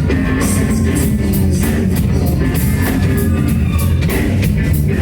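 Rock band playing live: a steady drum-kit beat with regular cymbal hits over bass and guitar.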